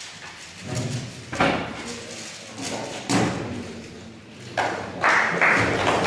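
A few dull thumps, two of them sharp, about a second and a half and three seconds in, in a large hall; voices start near the end.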